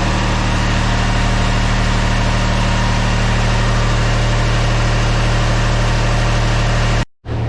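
Steady hum of an engine running at constant speed, idling evenly, broken off abruptly by a cut about seven seconds in.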